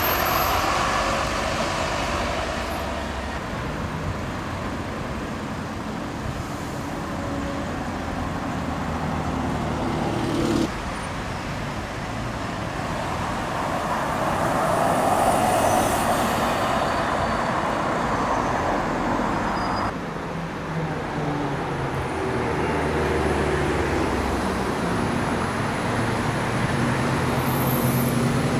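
London buses' engines and tyres with street traffic noise, in three takes that cut about a third and two-thirds of the way through. The noise swells around the middle as a single-decker bus passes.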